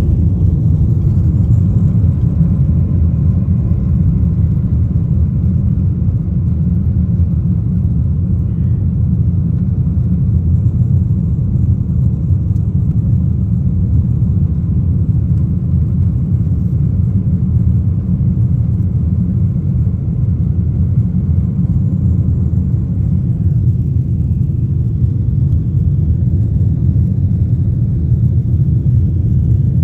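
Steady low rumble of a jet airliner, heard from inside the passenger cabin.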